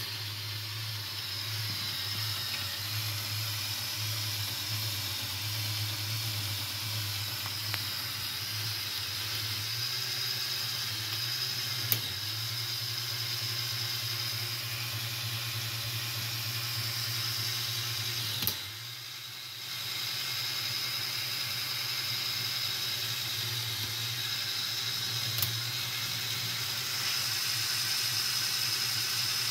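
LEGO Power Functions XL motor driving the plastic gear train of a modified Technic 42055 bucket wheel excavator gearbox: a steady whirr with a low hum. It cuts out for about a second past the middle after a click, then runs again, with a few other small clicks.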